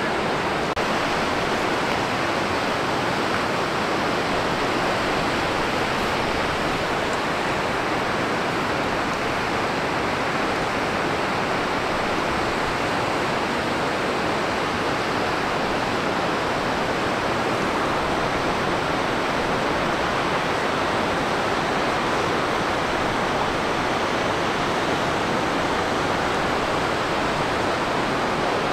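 Large waterfall, partly frozen, with water pouring down over the ice into a rushing river: a loud, steady rush of water with no change.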